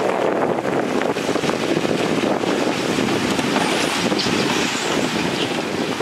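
Dump truck's diesel engine running steadily with its bed tipped up to unload soil, mixed with wind noise on the microphone.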